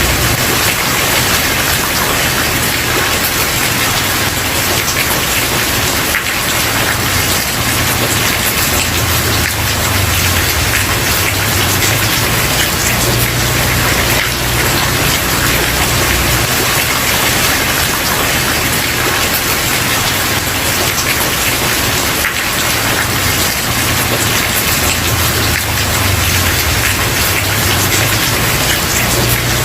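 Steady heavy rain falling on a wooden porch: a dense, even hiss with a low rumble underneath.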